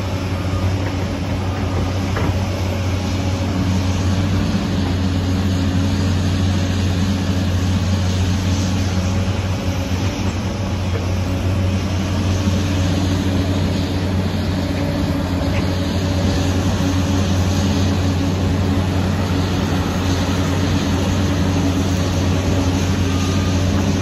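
Liebherr PR 746 crawler dozer's diesel engine running steadily as the dozer pushes earth with its blade, a constant low drone.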